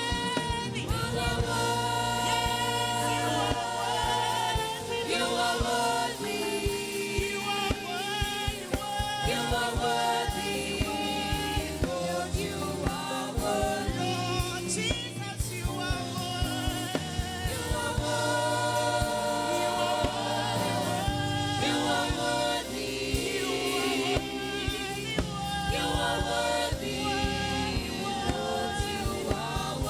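Gospel worship song sung by a choir with band accompaniment over a steady drumbeat.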